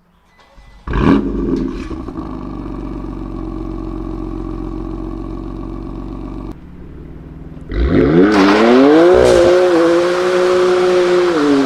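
BMW 1M Coupé's twin-turbo 3.0-litre inline-six with a straight-through aftermarket exhaust. About a second in it gives a sudden loud blip with a few sharp pops, then settles to a steady idle. Near two-thirds through it revs up hard, the pitch swinging up and down, holds high revs, and eases off slightly near the end.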